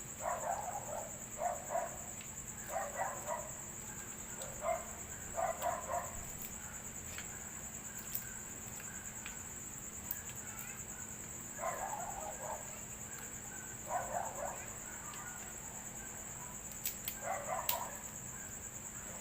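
Steady high-pitched insect chirring, typical of crickets, with about eight groups of short noisy sounds at irregular intervals and a few faint clicks.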